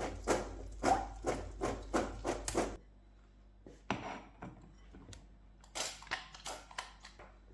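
Knife chopping on a wooden cutting board, a quick regular run of about three strokes a second that stops abruptly near three seconds in. After that come a few lighter kitchen taps and clicks.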